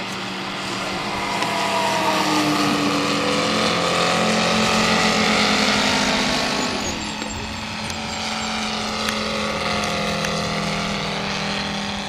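OS five-cylinder radial glow engine of a 1/5-scale Westland Lysander model plane in flight, running steadily. It grows louder toward a close pass about halfway through, drops a little in pitch as the plane goes by, then eases off as it flies away.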